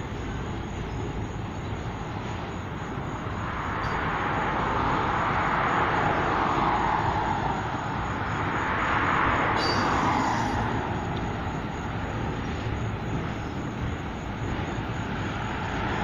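Freight train of auto-rack cars rolling past in a steady, continuous rumble. Road traffic passing in front swells the noise three times: from about four seconds in, again around nine seconds, and at the end.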